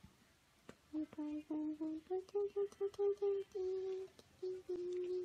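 A person humming a tune: from about a second in, a string of short held notes that step up a little in pitch, then stay near one pitch.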